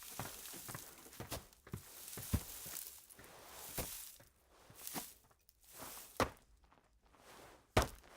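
Foley footsteps: a few scattered steps and scuffs with rustling between them, and a sharper, louder step near the end.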